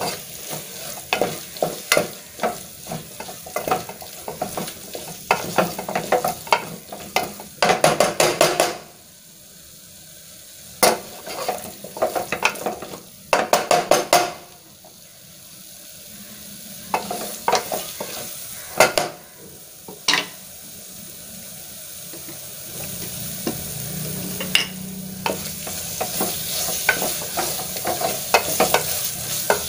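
A spatula scraping and knocking against an aluminium pressure cooker as a spiced onion-tomato masala is stirred while it fries, over a steady sizzle. The strokes come thick and fast at first and more sparsely later, while the sizzle grows louder toward the end.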